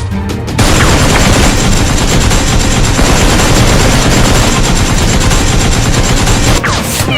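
Sustained rapid automatic-gunfire sound effect, a dense unbroken rattle that starts about half a second in and stops shortly before the end, over action background music.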